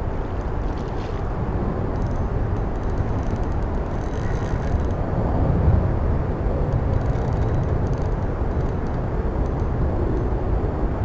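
Wind buffeting the camera microphone in a steady low rumble, with faint ticks and hiss from a spinning reel being cranked against a hooked carp.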